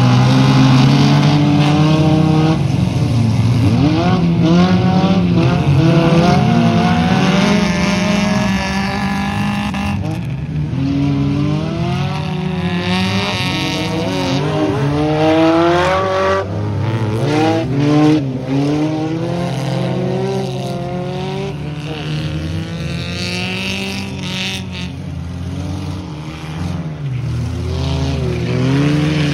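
Several stripped-down autocross cars racing together on a muddy dirt track, their engines overlapping and revving up and down repeatedly as they accelerate, lift and shift through the corners.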